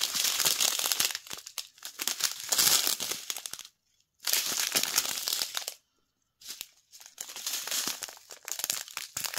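Small plastic zip bags of diamond-painting drills crinkling as they are handled, in bursts with two short pauses around the middle.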